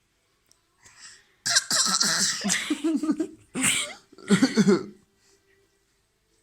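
A small child's fake, throaty coughing in imitation of a man's cough: three rough bursts with her high voice in them, the first and longest about a second and a half in.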